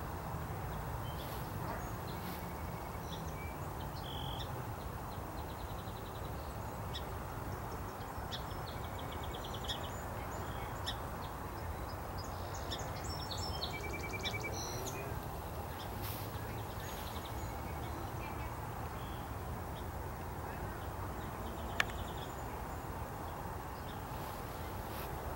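Open-field outdoor ambience: a steady background rush with small birds chirping and trilling now and then. A single sharp tick sounds near the end.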